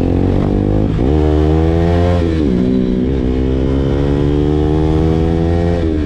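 KTM motorcycle engine pulling away under acceleration. Its pitch climbs, then drops at gear changes about a second in, a little after two seconds and again near the end.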